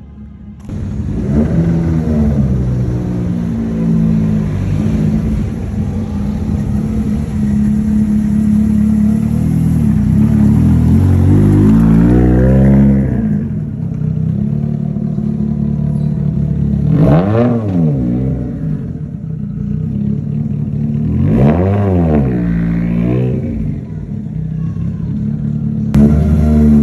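Toyota AE86 Trueno's four-cylinder engine running and revving up and down repeatedly, with two quick, sharp revs in the second half.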